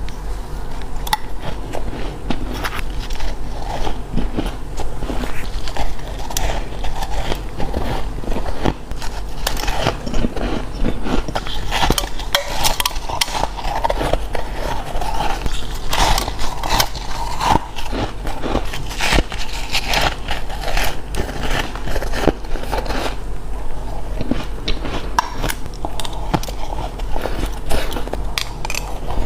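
Ice being bitten and crunched close to the microphone: a dense, continuous run of crisp cracks and crunches, bite after bite.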